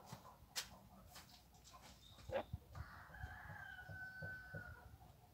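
A rooster crowing once, faint: one long call of about two seconds, starting just under three seconds in. A few light clicks come before it.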